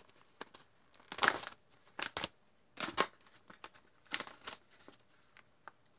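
A packaging pouch being opened by hand: a series of short crinkling, tearing rustles.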